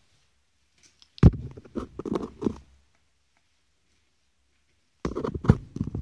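African grey parrot making low, throaty vocal sounds in two bursts, one about a second in lasting a second and a half, and another starting near the end.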